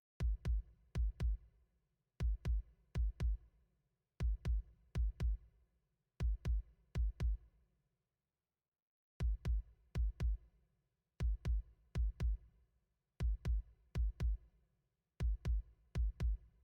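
Electronic music: a drum machine beat of deep kick-drum hits in groups of four, repeating about every two seconds, with a brief pause near the middle.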